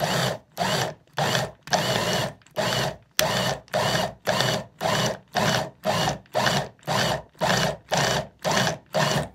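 Tescom THM321 hand blender running on its chopper attachment in short pulses, about two a second, each a brief whir of the motor and blade. The pulsing cuts cold butter and a little ice water into flour for pie-crust dough. The pulses stop near the end.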